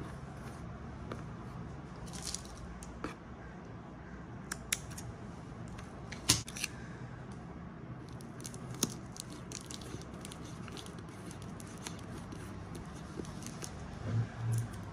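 Twine being pulled and tied into a bow around a cardboard package: quiet rustling of string on cardboard with scattered small clicks and taps, the sharpest about six seconds in, and two soft low bumps near the end.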